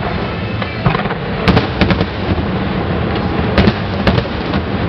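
Aerial fireworks going off at a display: a continuous rumble of distant bursts, with a series of sharp, loud bangs from individual shells cracking through it.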